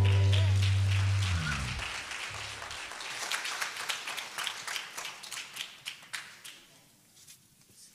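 The worship band's last held chord, with a deep bass note, rings and dies away in the first two seconds; then a congregation claps, the clapping thinning out and fading by about seven seconds in.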